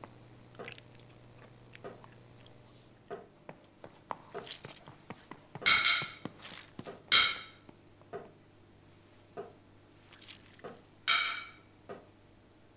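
Knives and forks on china plates: small clicks and taps throughout, with three louder ringing scrapes of a knife across a plate, two close together in the middle and one near the end. Faint chewing between them.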